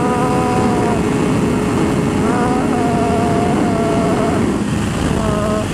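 Honda CBR600 sport bike's inline-four engine running hard at high revs under a heavy rush of wind noise. Its pitch holds steady, then wavers and shifts partway through.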